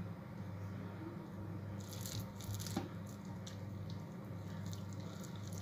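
Faint crackling and rustling of hands shaping sticky oat-and-banana dough into balls over a plastic bowl, with a soft tap about three seconds in, over a steady low hum.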